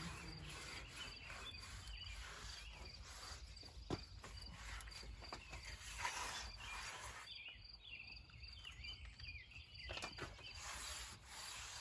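Faint outdoor ambience: insects chirping steadily on a high pitch over a low rumble, with a few light knocks and rubs as a gloved hand wipes acid over the rusty steel of the machine; the clearest knock comes about four seconds in.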